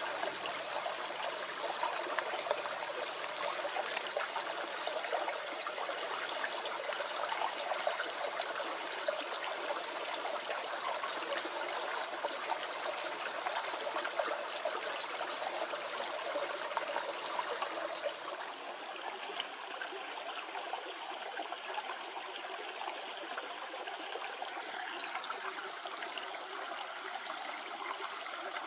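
Water running in a stream, a steady rushing sound that drops a little in level about two-thirds of the way through.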